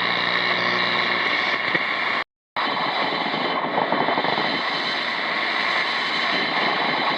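Shortwave radio static from a Zenith Trans-Oceanic 3000-1 receiver's speaker: a steady hiss of atmospheric noise with faint whistling tones mixed in. It cuts out completely for a moment about two seconds in.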